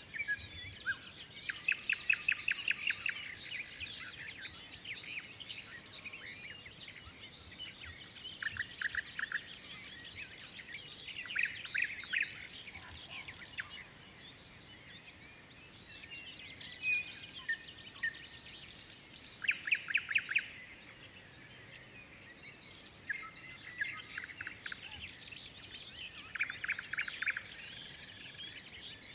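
Dawn chorus: several songbirds singing over one another. Fast series of repeated notes come in bursts every several seconds, among higher short whistled notes.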